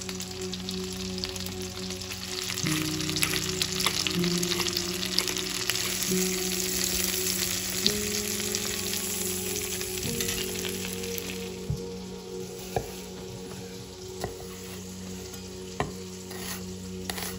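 Food sizzling in hot oil in a frying pan as it is stirred. The sizzle dies down about two-thirds of the way through, and a few sharp taps follow.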